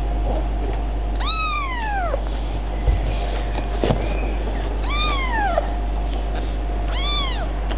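A kitten meowing three times, a few seconds apart; each meow is short and high and rises then falls in pitch.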